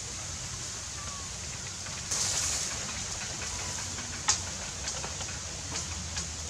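Dry leaves and bamboo kindling rustling under a hand as a small pile of tinder is lit. A sharp click comes a little past the middle, followed by small scattered crackles as the dry leaves start to smoulder.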